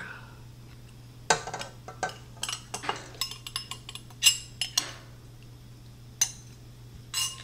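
Metal spoon clinking and scraping against a glass mixing bowl as powdered sugar is tipped and scraped out into a stand mixer bowl: about nine irregular sharp clinks, each with a short ring.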